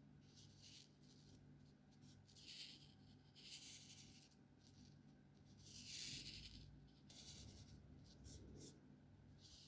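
Alcohol-based marker strokes on paper: a series of faint, short scratchy strokes, the longest and loudest about six seconds in.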